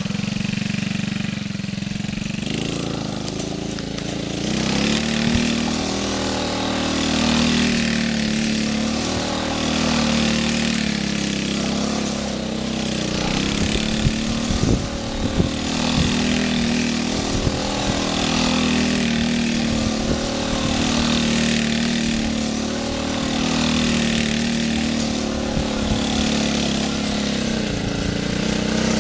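2012 Gio Spyder 70cc mini ATV engine running as the quad circles, its pitch rising and falling in a repeating cycle about every two and a half seconds. A few sharp knocks come about halfway through.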